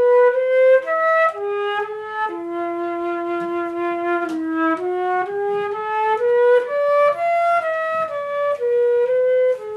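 Solo flute playing a slow melody, one note at a time moving up and down, with a long held low note near the middle.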